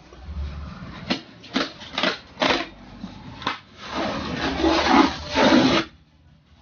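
Hands handling a polystyrene foam packing box: a handful of short, sharp scrapes and squeaks of the foam, then a longer, louder rubbing of foam against foam for about two seconds near the end.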